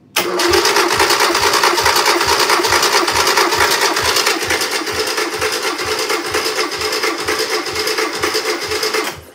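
Old four-cylinder engine cranked over on its starter motor with all the spark plugs out, turning without firing for a compression test: a steady whine with a regular low pulse about three times a second. It starts abruptly and runs for about nine seconds before cutting off.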